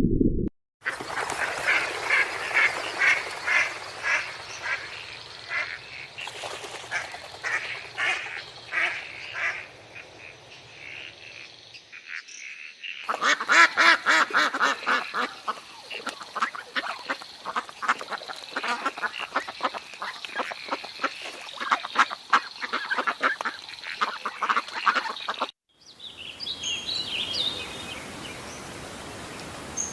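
Ducks quacking in rapid, repeated calls, in two stretches separated by brief cuts, followed near the end by a quieter stretch of fainter, higher chirps.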